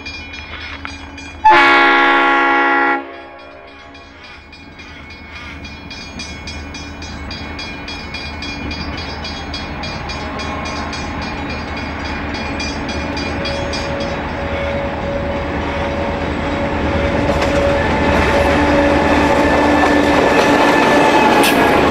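G class diesel-electric locomotive G521 sounds one horn blast of about a second and a half, near the start. Its engine then grows steadily louder as the freight train approaches and draws level, while the level crossing's warning bell rings repeatedly.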